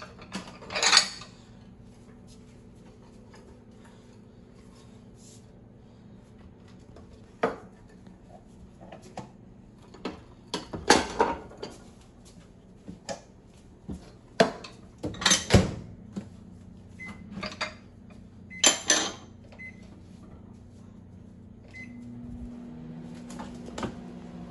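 Bowls and cups clattering and knocking against each other and the rack of a drawer-style dishwasher as they are lifted out and set back in, in irregular bunches of sharp knocks, over a steady low hum.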